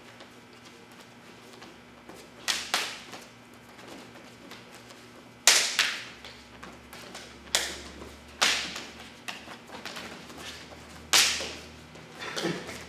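Hands slapping on forearms and bodies as strikes and blocks land in a fast Kenpo 'five swords' flow drill. There are about half a dozen sharp slaps at irregular intervals, two of them close together, and the loudest comes a little over five seconds in.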